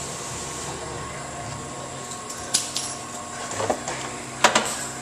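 A few sharp clicks and knocks of car body covers and their fasteners being worked loose by hand, the loudest a pair of knocks about four and a half seconds in, over a steady workshop hum.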